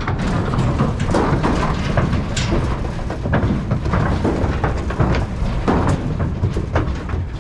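Calves shuffling and stamping in a steel stock trailer: hooves knocking on the wooden floorboards and bodies bumping the metal sides, a dense run of irregular knocks and thumps.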